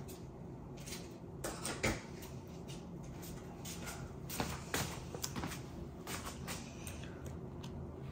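Scattered small clicks, taps and knocks of parts and tools being handled, over a steady low hum.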